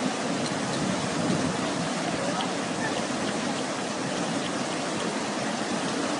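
Fast-flowing floodwater rushing steadily, the even hiss of a swollen river in spate.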